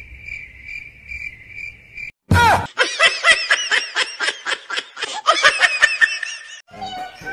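A cricket-chirp sound effect pulses steadily for about two seconds, then stops. A sudden loud laughing sound effect follows: a long run of rapid, high-pitched 'ha-ha' syllables lasting about four seconds.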